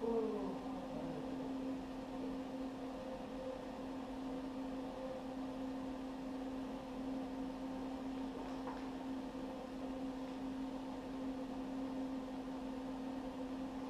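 Small wire-feed welding machine humming steadily at idle between welds, with a brief falling whine right at the start.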